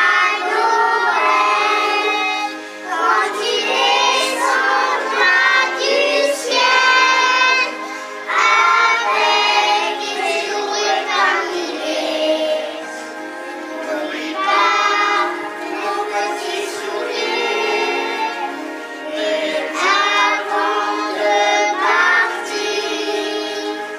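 Children singing a song together with musical accompaniment.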